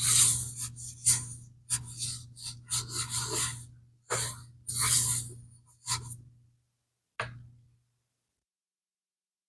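A run of brisk scrubbing strokes on a vintage Swiss Army leather bag during cleaning, about one stroke a second with a low hum under them, and one last stroke after a short pause about seven seconds in.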